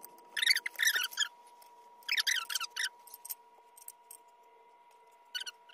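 Squeaking in three spells, the last one brief, as a man shifts his weight and rises from a power wheelchair to lean onto a bed.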